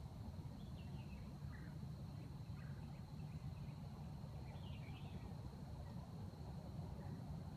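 Quiet woodland ambience: a few short, high bird chirps come and go over a steady low rumble, with a thin, steady high-pitched hum.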